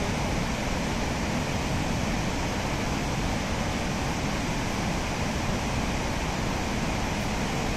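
Rhine Falls waterfall: a steady, even rush of white water pouring and churning into the plunge pool below.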